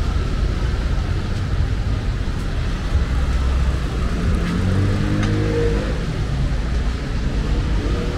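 City street traffic: cars passing with a steady low rumble, one vehicle's engine coming up louder about halfway through.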